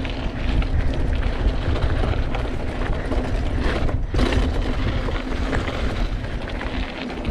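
Wind buffeting the handlebar-mounted action camera's microphone while a mountain bike rolls over a dirt trail, with tyre noise and the bike rattling over bumps. The sound cuts out briefly about four seconds in.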